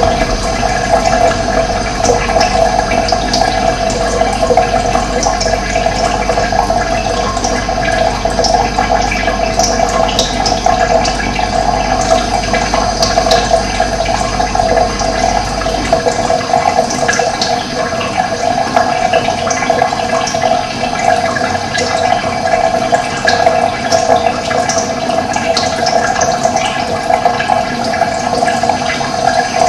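Running water rushing steadily. A low hum underneath cuts out about halfway through.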